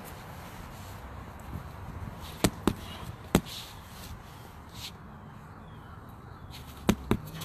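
Rubber medicine ball thrown hard against a wall, landing in sharp smacks: three in under a second about two and a half seconds in, and two more near the end as it strikes the wall and drops back.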